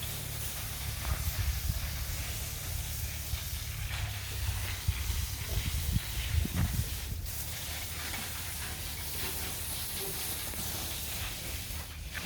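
Water jet from a hose hissing steadily as it sprays, with a steady low hum underneath.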